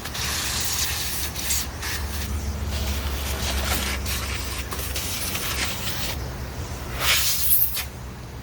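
Compressed air hissing in a long blast, then a shorter, louder blast about seven seconds in, blowing dust out of vacuum cleaner parts, over a steady low hum.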